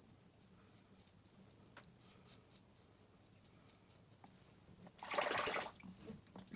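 Razor blade scraping through lathered stubble in short, faint strokes, then about five seconds in a brief loud splash of water, as from rinsing the razor.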